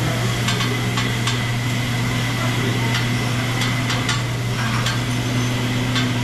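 Food sizzling on a hot teppanyaki griddle, with frequent sharp clicks of metal spatulas tapping and scraping the hotplate, over a steady low hum.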